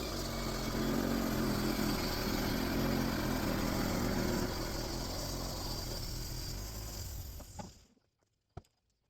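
The engine of a homemade bandsaw sawmill running steadily as the mill cuts through a pine log. About three-quarters of the way through, the sound stops sharply, followed by a single click.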